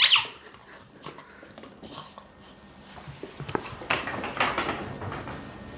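A squeaky toy gives one sharp squeak with a falling pitch at the start as a Grand Basset Griffon Vendéen puppy grabs it. After that come scattered clicks and scrabbling from the puppy's claws and paws on a tiled floor, busier in the second half.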